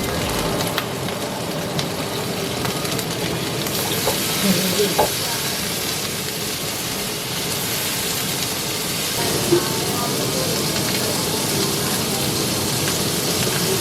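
Food sizzling steadily in a frying pan, the hiss growing brighter a few seconds in, with a few light clinks of a utensil against the pan.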